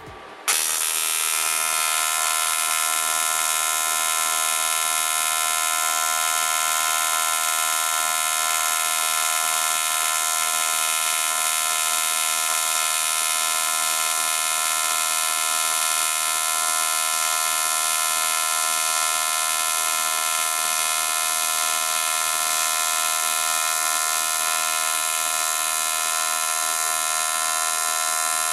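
AC TIG welding arc on thin aluminium, buzzing steadily as the weld is run. The arc strikes about half a second in and holds an even, unchanging buzz.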